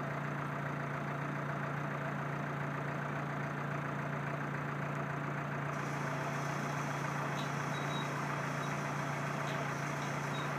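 An engine idling steadily: a constant low hum with an even rumble over it that does not change in pitch or level.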